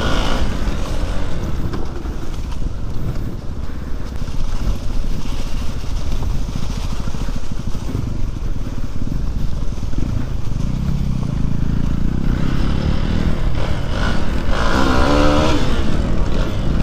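Hero XPulse 200 dirt bike's single-cylinder engine running as it rides a rough, leaf-strewn trail, heard from the rider's helmet camera with heavy wind rumble. The engine note grows louder from about ten seconds in.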